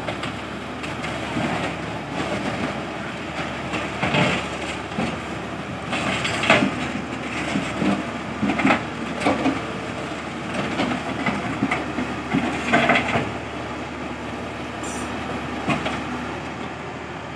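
Tata Hitachi EX200 excavator's diesel engine running steadily, with several louder metallic knocks and clanks breaking through.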